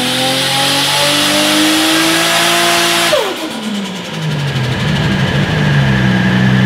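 Turbocharged engine of a Nissan 180SX time-attack car running on a dyno, climbing steadily in revs for about three seconds, then dropping sharply off throttle and settling to a steady lower run.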